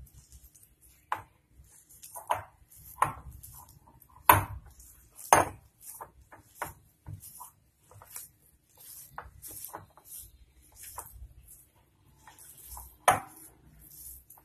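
A hand squeezing and mixing a thick raw-banana and gram-flour kofta mixture in a glass bowl, with irregular knocks and taps of the glass bowl; the sharpest come about four, five and thirteen seconds in.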